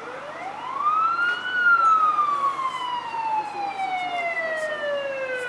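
Emergency vehicle siren sounding a single wail: it rises quickly for about a second and a half, then falls slowly and steadily.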